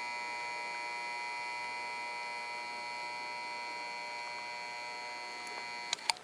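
Transformer soldering gun buzzing steadily with a high, many-toned hum while it heats a heat sink tab for soldering to a circuit board. Near the end there are two or three sharp clicks and the buzz stops.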